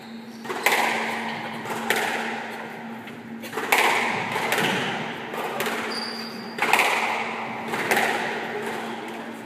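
Squash ball struck hard during a rally: sharp cracks of racket on ball and ball off the walls, every one to three seconds, each echoing in the court.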